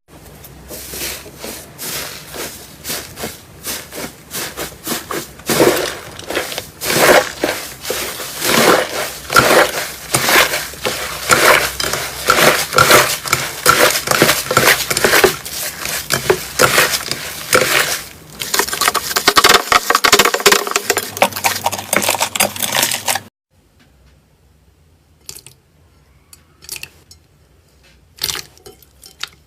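Slime being squeezed and worked by hand, giving dense rapid crackling and popping as air pockets burst. It stops suddenly about 23 seconds in, leaving only a few faint clicks.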